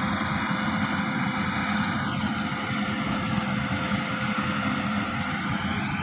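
Rice combine harvester (Maxxi Bimo 110 Plus) running steadily while harvesting, a continuous engine and threshing drone.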